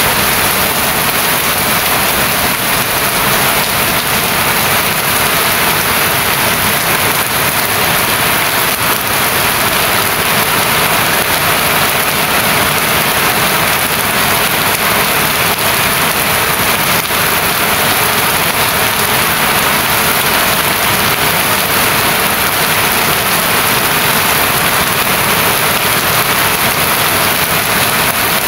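Steady rain falling, a continuous even hiss with no break or change.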